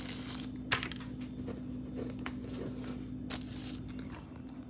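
Steady low hum of a running microwave oven, with a few light clicks and rustles of objects being handled.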